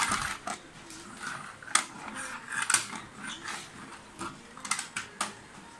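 Plastic toy train cars knocking and clattering against a wooden tabletop: a string of irregular sharp clacks, the loudest a little under two seconds in and near three seconds.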